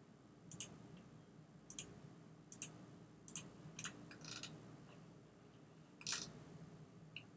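Computer mouse clicking: about eight short, sharp clicks spaced irregularly, several heard as a quick double tick of press and release, over a faint low hum.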